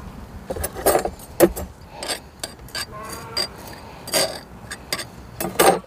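Gloved hands pressing and settling coarse potting grit around a succulent in a ceramic pot: a run of irregular short clicks and scrapes.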